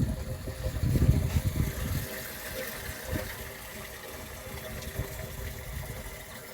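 Rainwater gushing and flowing in a steady rush, with heavier low rumbling over the first two seconds.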